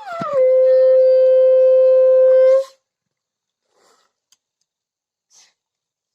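Conch shell (shankha) blown in one long, steady note of about two and a half seconds that then stops, sounded as an auspicious signal during a Hindu ritual.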